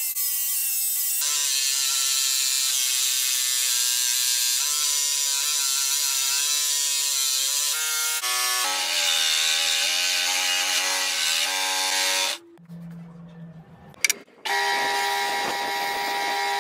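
Scroll saw running and cutting a small hardwood lever, then stopping about twelve seconds in. After a short lull and a click, a spindle sander starts and runs steadily near the end.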